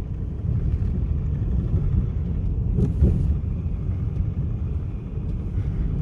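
Steady low road rumble inside the cabin of a BMW car driving along a country asphalt road, the engine and tyres running evenly. One short knock about three seconds in.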